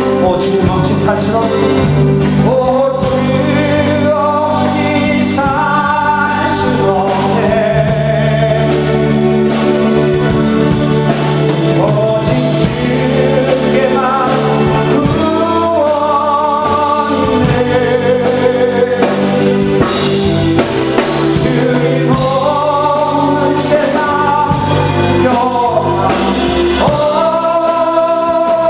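Live Christian praise song: a man and a woman sing into microphones over electric guitar and steady low accompaniment.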